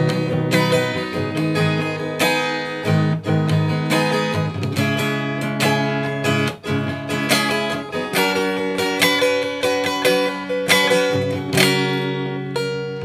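Acoustic guitar with a capo, playing chords in an instrumental break: strummed and picked chords in a steady rhythm, with no voice.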